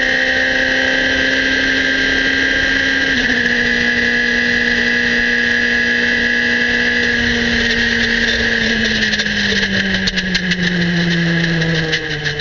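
Norma sports prototype's engine at high revs flat out, with an upshift about three seconds in; from about nine seconds in the engine note falls steadily as the driver lifts off. From about ten seconds in, irregular sharp knocks and rattles come through: the vibration of the right-front tyre that is about to explode.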